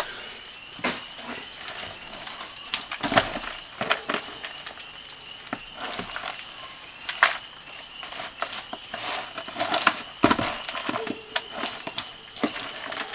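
Salad being tossed with a fork in a plastic bowl: lettuce rustling and the fork clicking and knocking irregularly against the bowl, with a faint steady high tone underneath.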